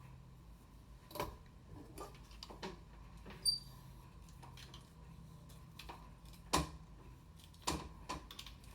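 Scattered light clicks and taps of hair-styling tools being handled, about seven over several seconds, one of them with a brief high ring, over a faint steady hum.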